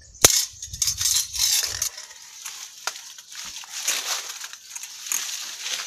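Handling noise as a metal snap mousetrap is picked up off the rock: a sharp click about a quarter second in, then irregular crunching and crackling of movement over grit and dry leaves.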